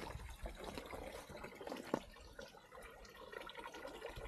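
Faint trickle of water running from a stone roadside fountain's spout, with many tiny drip-like ticks and one sharper tap about two seconds in.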